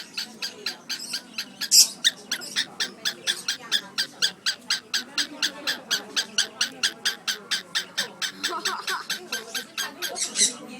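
Cockatiel giving a fast, even run of short, shrill chirps, about four or five a second, with a louder, longer call near 2 s and again near the end.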